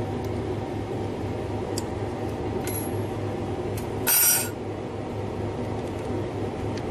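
Opened hard disk drive running with its platter and head arm exposed: a steady motor hum with a few faint ticks, and a brief, louder metallic clink about four seconds in.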